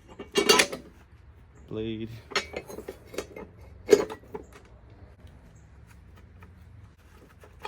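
Metal parts of a mower's blade assembly, the steel blade and blade adapter, clinking and clanking as they are handled and fitted back on: a handful of separate clinks, the sharpest about four seconds in.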